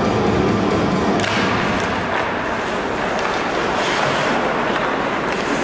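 Arena music over the PA, stopping about a second in. Then the sounds of live hockey: skates scraping the ice, with scattered sharp knocks of sticks and puck and thuds.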